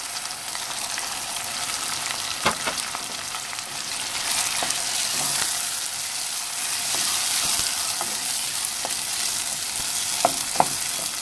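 Chopped tomatoes and onions sizzling in hot oil in a pan, stirred with a wooden spoon. The spoon knocks against the pan, loudest once about two seconds in and twice close together near the end.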